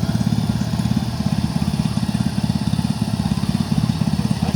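Engine of the vehicle delivering a shed cabin, running steadily with a fast, even chugging pulse.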